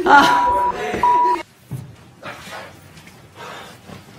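Two short censor bleeps, each a steady tone of about half a second, laid over a man's swearing. The sound then drops to faint room tone.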